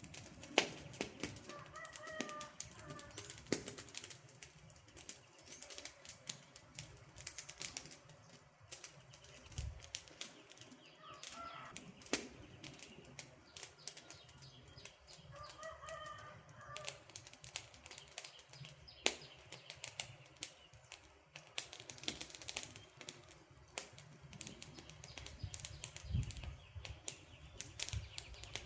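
Wood campfire crackling and popping, a steady stream of sharp irregular snaps over a soft low rumble of the flames. A bird's short chirping call comes in a few times.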